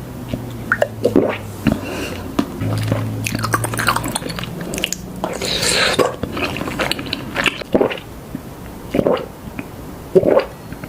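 Close-miked mouth sounds of someone eating boba tea: irregular chewing and biting of tapioca pearls with wet mouth clicks, and a brief hiss about halfway through.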